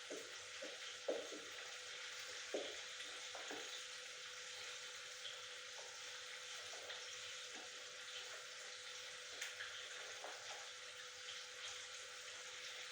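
Food frying in oil in a pan: a steady, faint sizzle with a few small scattered pops.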